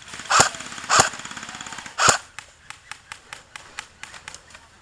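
Airsoft guns firing in a skirmish: three loud sharp shots about a second apart over a rapid stream of fainter full-auto fire. The stream stops about two seconds in, leaving scattered faint single shots.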